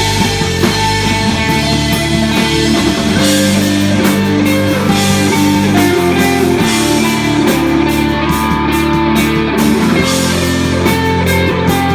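Rock band playing live: electric guitar with bass and drums, with cymbals washing over held guitar notes.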